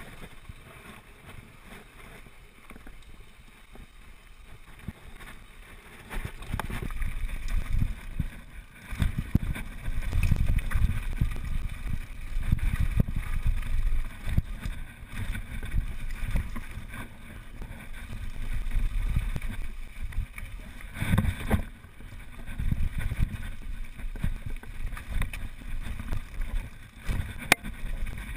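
Wind rumbling on the microphone of a camera riding a downhill mountain bike, with the bike's tyres and frame rattling and knocking over a rough dirt trail. It gets louder and rougher about six seconds in, with a hard jolt near two-thirds of the way through.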